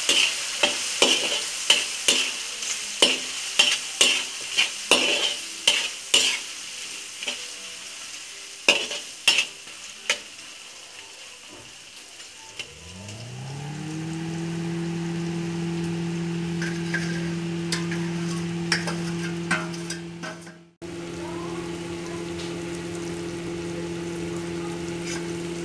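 Chicken frying in hot oil in a karai, sizzling, with a metal spatula striking and scraping the pan over and over during the first ten seconds or so. About halfway through, a motor spins up to a steady low hum, cut off for a moment near the end.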